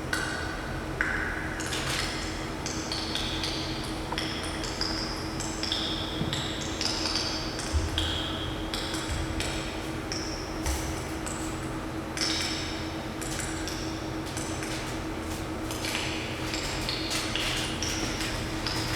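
Ancient glacial ice popping and crackling as it melts: scattered sharp clicks mixed with short, high ringing pings that jump between pitches, over a steady low hum.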